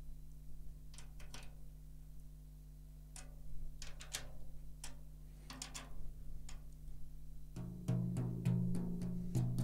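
Small scattered clicks from a drum key turning the tension rods of a snare drum. About seven and a half seconds in come repeated finger taps on the freshly fitted batter head, which rings with a low pitch: the head is still tuned too slack and is being tightened step by step.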